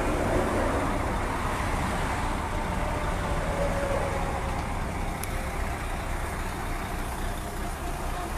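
Steady rumble of motor vehicles and roadway traffic, with a faint whine near the middle.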